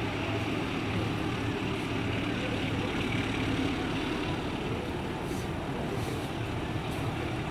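Diesel locomotive of a container freight train running with a steady low engine drone.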